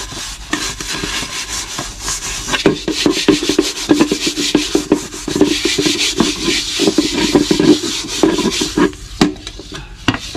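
Scouring pad scrubbed hard back and forth over the soot-blackened bottom of an aluminium pot, a rough scraping in quick repeated strokes that eases off briefly near the end.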